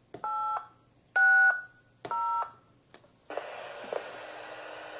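DTMF touch-tones from a Retevis mobile radio's keypad microphone: three short two-note beeps under a second apart. These are the digits 8, 6 and 0 that finish dialing IRLP node number 2860. About three seconds in, a steady hiss with a low steady tone under it starts from the radio.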